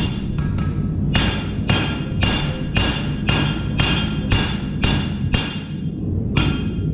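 Hammer blows on a hot steel knife blank against an anvil, about two ringing strikes a second with a short pause near the end. The smith is straightening the crooked blade.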